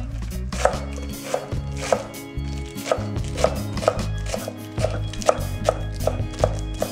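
Ceramic kitchen knife slicing lettuce into fine strips on a wooden cutting board: a steady run of crisp chopping strikes, about two to three a second.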